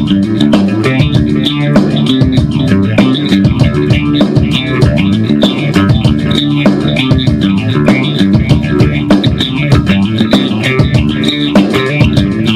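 Outro music: a steady beat with bass guitar and guitar.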